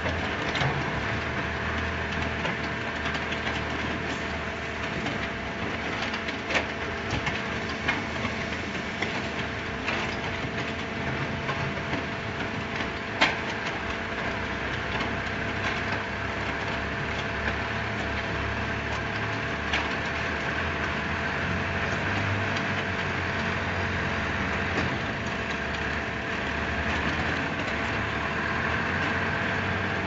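Vertical concrete mixer pump running: a steady mechanical drone with a constant hum, broken by a few sharp knocks, the loudest about halfway through.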